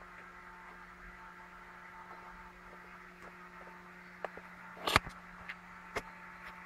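A steady low electrical hum with a faint hiss under it, broken by a few sharp clicks and knocks, the loudest about five seconds in.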